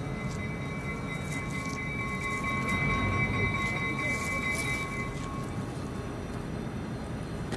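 EMD GP38-2 diesel locomotive's 16-cylinder engine running with a steady low rumble. A faint, steady, high-pitched whine of several tones comes in about a second in and fades out after about five seconds.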